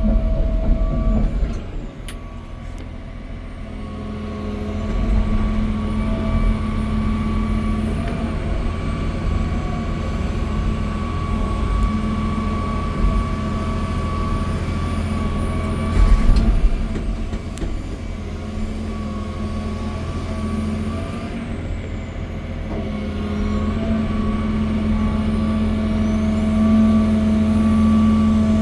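John Deere 350D LC excavator's 9.0-litre six-cylinder turbo diesel running under load while the machine travels on its tracks in high travel speed (2-speed). The engine note is steady and swells a few seconds in and again near the end, with a brief loud knock a little past halfway.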